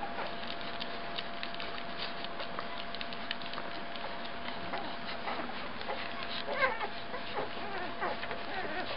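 Ten-day-old standard poodle puppies nursing: many small suckling clicks and short high squeaks, with a cluster of squeaks about six and a half seconds in, over a steady hiss.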